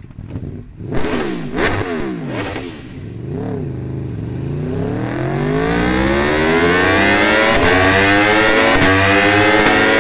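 Aprilia RSV4's V4 motorcycle engine revving through its exhaust: four quick throttle blips, then a long steady climb to high revs that is held there.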